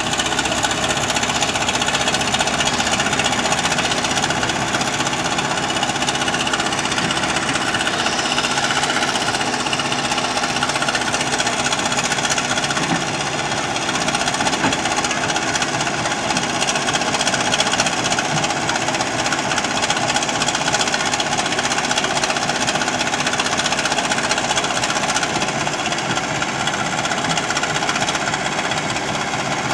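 JCB 3DX backhoe loader's diesel engine running steadily under load while the backhoe arm digs.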